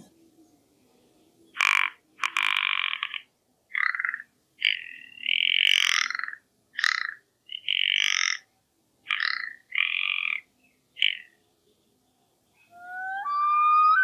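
Rock ptarmigan calling: a series of about nine dry, rough croaks, some short and some drawn out, separated by brief pauses. Near the end a common loon's call starts with clear whistled notes, the first one rising.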